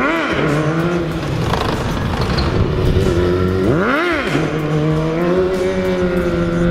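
BMW E90 M3's V8 with an iPE exhaust, blipped sharply twice, at the start and again about four seconds in, each rev rising and falling quickly, then running steadily as the car rolls slowly.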